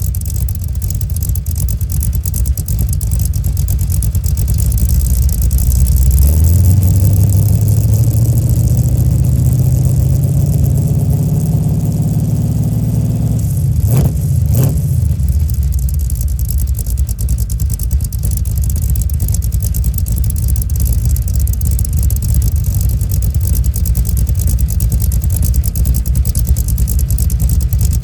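Cammed 355 small-block Chevy V8 with an XR282 camshaft, running through Flowmaster Flow FX mufflers. The engine runs steadily, then its speed climbs smoothly for about seven seconds and drops back, with two sharp cracks just after the drop, before it settles into a steady run again.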